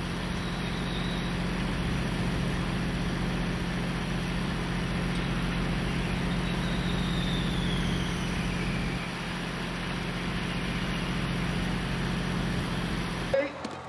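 A procession of fire trucks and pickup-based brush trucks rolling slowly past, engines running with a steady low hum over road noise. The sound cuts off suddenly near the end.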